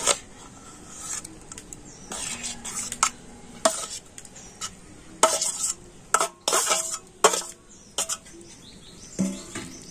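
A steel spoon scrapes and clinks against a stainless-steel bowl as fried vegetables are spooned out into a steel tiffin box. The strokes come irregularly, a dozen or so sharp clinks and scrapes, some ringing briefly.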